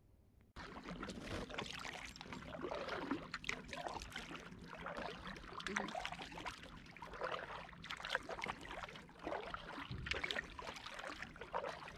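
Double-bladed paddle strokes beside an inflatable packraft: the blades dipping, splashing and dripping water in an uneven rhythm. The sound starts suddenly about half a second in.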